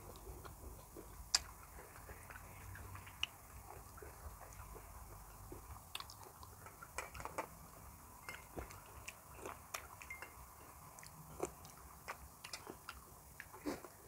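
A person chewing raw shrimp and fresh vegetables close to the microphone: faint wet clicks and small crunches, with a sharp click about a second in and a busier stretch of crackly chewing in the second half.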